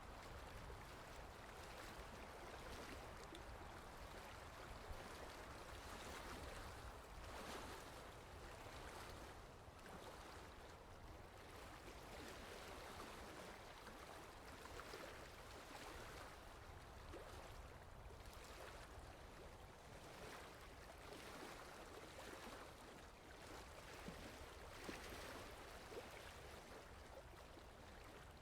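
Faint water lapping in small irregular splashes every second or two over a steady wash, with a low wind rumble underneath.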